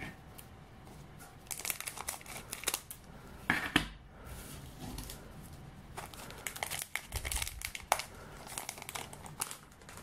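Foil trading-card booster pack snipped open with scissors and handled, its wrapper crinkling in short, separate bursts.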